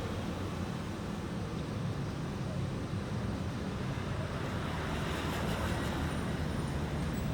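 Road traffic passing, a steady low rumble of vehicle engines and tyres.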